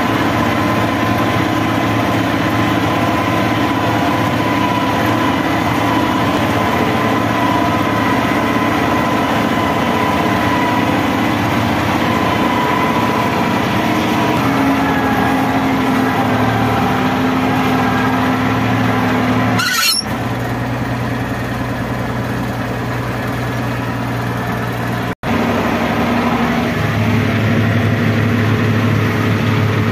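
Tractor engine running steadily, heard from inside the cab as the tractor drives through mud, with a thin steady whine over it. The sound breaks off abruptly twice, about two-thirds and five-sixths of the way through, at cuts in the recording, and the engine runs on afterwards.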